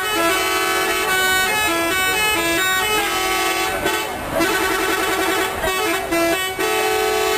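Bus 'telolet' horn: a multi-tone musical horn playing a quick warbling tune of a few alternating notes, in repeated phrases with short breaks.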